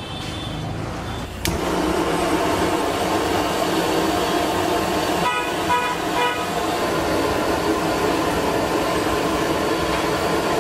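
Steady street traffic noise with a few short vehicle-horn toots about halfway through.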